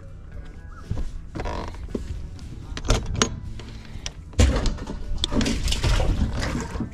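Knocks, thumps and rustling from handling the fish and rod on a bass boat, with the loudest thump about four and a half seconds in, followed by a busy patch of handling noise. A low rumble of wind buffeting the microphone runs underneath.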